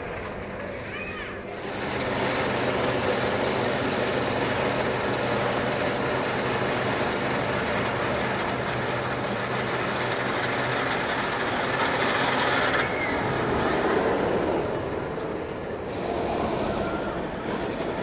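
Jersey Devil Coaster running: a steady roar with a low hum as the train climbs the lift hill, its upper hiss cutting off suddenly about 13 seconds in, around when the train crests the top.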